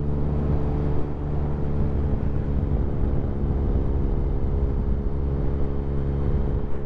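Motorcycle engine running at a steady cruise, a constant hum over a low rumble, heard from the rider's own bike.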